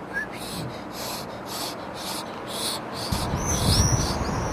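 Rhythmic breathy whooshes, a little over two a second, from a child blowing through pursed lips to imitate a bird's flapping. In the last second or so a few high chirping bird calls sound over a low rumble.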